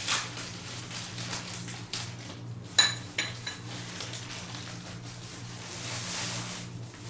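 Cookware and metal utensils clinking: one sharp ringing clink about three seconds in, then a few lighter ones, over a steady low hum.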